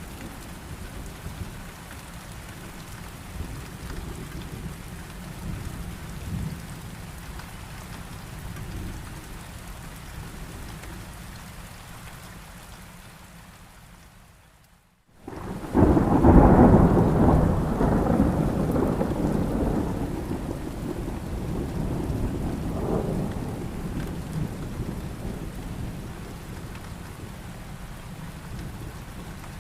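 Heavy rain with rolling thunder. The low rumble fades away and the sound drops out briefly about halfway through. Then a loud thunderclap breaks in and rumbles away over several seconds, with the rain continuing throughout.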